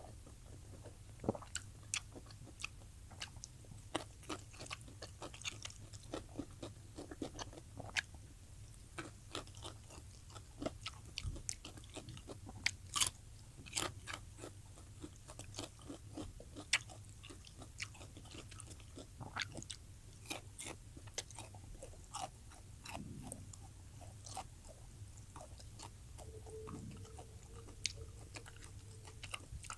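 Close-miked mukbang eating sounds: chewing with frequent sharp mouth smacks, clicks and bites at an irregular rate.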